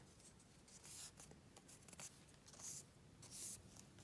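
Faint rustling of a sheet of paper being folded in half and creased by hand, in a few short rubbing strokes.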